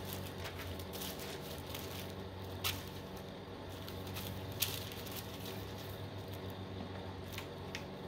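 Thin Bible pages being leafed through, with faint rustling and a few crisp page flicks, over a steady low hum.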